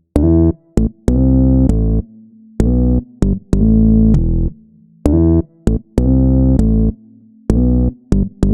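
Background music: choppy synthesizer and electric-piano chords with deep bass, starting and stopping abruptly in a stuttering rhythm.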